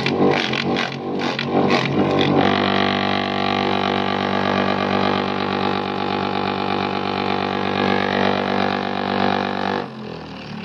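Small chopper machine running with a steady drone; for the first couple of seconds irregular knocks break into it as material goes through, then it runs evenly until the sound drops away near the end.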